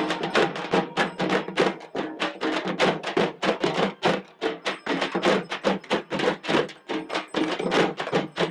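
Malbar frame drums (tapou) beaten with sticks in a fast, steady, even rhythm of about five strikes a second.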